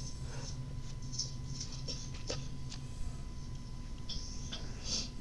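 Loose dirt and debris in a dug hole being disturbed: soft scratching and rustling with scattered small clicks, over a steady low hum.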